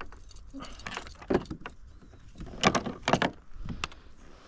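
Knocks and clatter against the plastic hull of a fishing kayak while a hooked peacock bass is brought alongside on the line. The two loudest knocks come close together about three seconds in.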